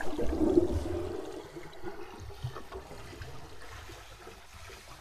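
Wind buffeting the microphone, a rushing noise with irregular low rumbles, fading out steadily.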